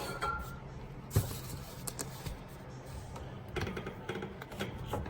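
Faint clicks and rustles of a plastic fuel-line release tool being worked into the quick-connect fittings on the fuel sending unit lines, with one sharp knock about a second in, over a low steady hum.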